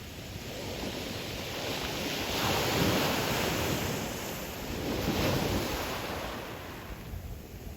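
Sea waves breaking on a pebble beach. Two surges build and peak about two and a half and five seconds in, then wash back and fade.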